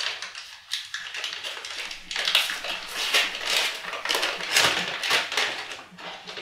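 Brown paper wrapping being torn open and crumpled by hand: a run of crinkling rips and rustles, several a second.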